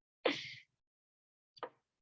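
Two brief, clipped voice sounds over a video call: a breathy burst about a quarter-second in and a shorter fragment near the end. Between them the line is silent.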